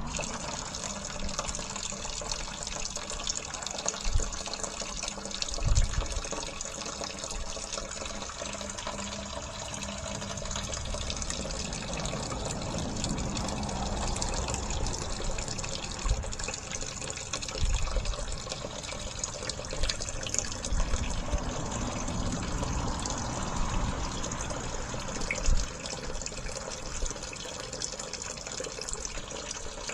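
Toilet flush water pouring steadily from the drain pipe into a sewage wet well, with wind buffeting the microphone in brief low thumps.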